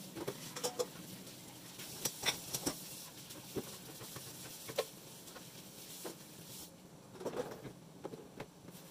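Dishes being washed at a kitchen sink: tap water running with scattered clinks and knocks of a metal pot and dishes. The water shuts off about two-thirds of the way through, and a few more knocks and clatters follow.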